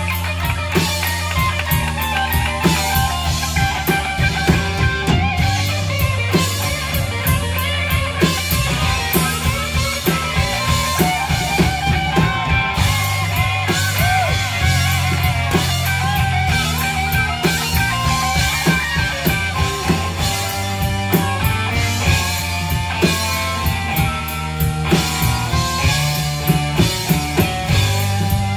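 Live blues-rock band playing an instrumental passage: electric guitar, bass guitar and drum kit, with an amplified harmonica playing sustained, bending notes over the top.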